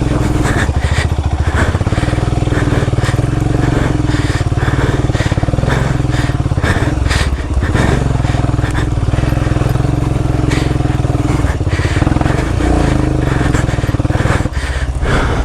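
Royal Enfield Himalayan's 411 cc single-cylinder engine running hard on a rough off-road trail, the revs dropping briefly a few times, with short crunching and knocking sounds from the stones under the tyres.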